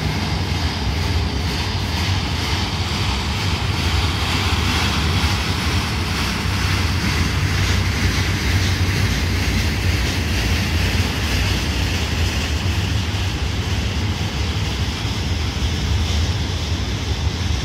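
Freight cars of a rail train, flatcars loaded with rail and maintenance-of-way cars, rolling past: a steady rumble of steel wheels on the track.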